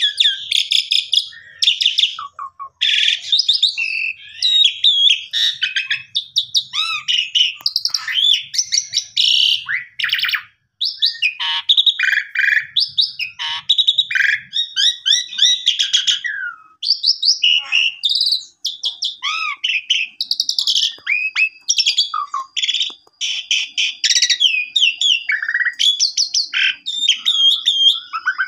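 Asian pied starling singing non-stop: a fast, varied stream of whistles, chatters and rising and falling notes, full of fill-in phrases. A thin steady high tone runs under the song for the last several seconds.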